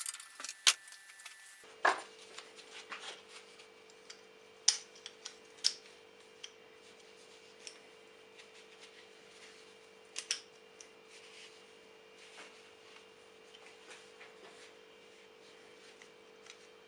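Restored Rolcut secateurs being worked by hand, giving scattered sharp metal clicks and snaps as the blade and handles open and close, with a few louder snaps in the first half and softer clicks and rubbing later. A faint steady hum sits underneath from about two seconds in.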